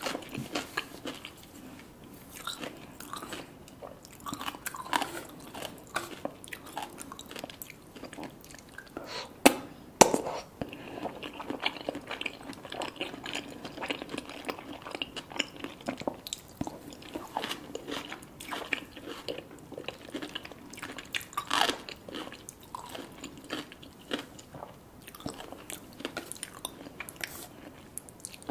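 Close-miked eating: steady chewing and crunching of crisp food, with two loud, sharp bites about ten seconds in.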